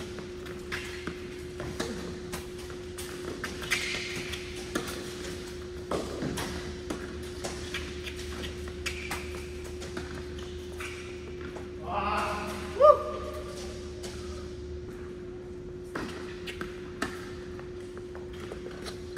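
Tennis rally on an indoor hard court: sharp racquet strikes and ball bounces at irregular intervals over a steady hum. About two-thirds of the way through comes a short, loud rising sound, the loudest moment.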